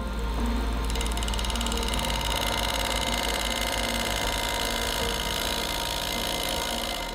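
Wood lathe running with a steady motor hum while a bowl gouge cuts the spinning wood, a dense cutting hiss that builds about a second in.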